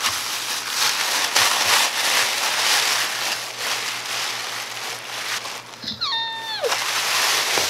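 Thin plastic shopping bag crinkling and rustling as it is handled and opened. About six seconds in, a short squeal falls in pitch.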